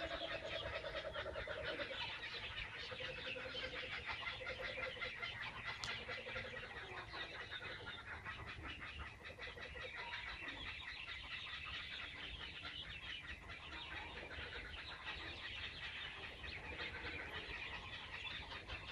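Laughing kookaburras calling together in a rapid, rolling laugh of fast repeated notes. The chorus is loudest over the first several seconds and then carries on a little fainter.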